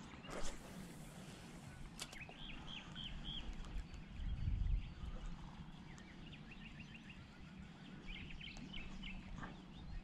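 Small birds chirping in short series of quick high notes over a faint outdoor background, with a couple of sharp clicks early on and a brief low rumble about four seconds in.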